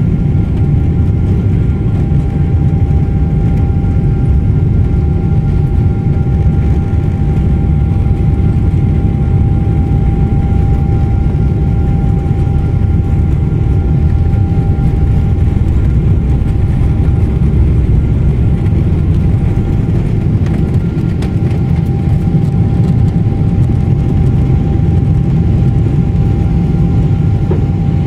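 Boeing 777-200 cabin during takeoff: a steady, loud low rumble from the engines at takeoff power and the airframe, with a thin steady whine above it.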